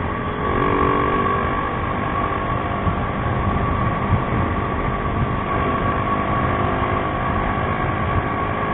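Motorcycle engine running steadily while riding at cruising speed, mixed with road and wind noise.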